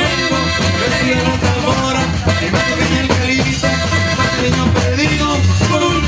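Norteño band music with the accordion leading over a bouncing bass line and a steady dance beat.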